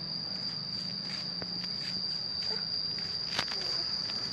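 Steady high-pitched cricket trill over a low hum, with faint ticks and one sharp click about three and a half seconds in.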